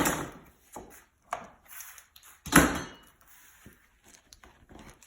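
Bar clamps being loosened and pulled off a mold: a series of knocks, clunks and clicks, the loudest about two and a half seconds in.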